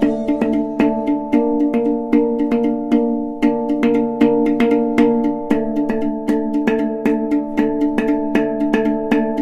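Background music: held chords with a steady light tapping beat, about three taps a second.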